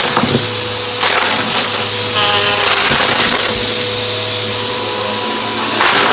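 Vacuum cleaner running loudly and steadily, a constant hiss over a low hum, with a few sharp crunchy crackles as it picks up debris.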